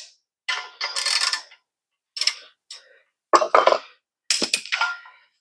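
Irregular metallic clinks, rattles and scrapes from steel suspension hardware and hand tools being handled, some with a light ring.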